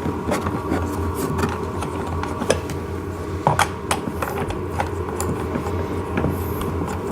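Light clicks and knocks of a washer and nut being fitted onto the front wheel axle of a plastic ride-on toy tractor, scattered irregularly over a steady hum, the sharpest about halfway through.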